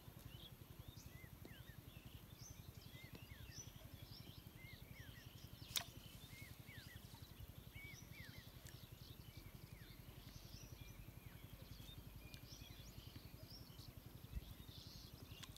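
Faint chirping of small birds, many short calls overlapping, over a low steady rumble. A single sharp click comes about six seconds in, and a soft low thump near the end.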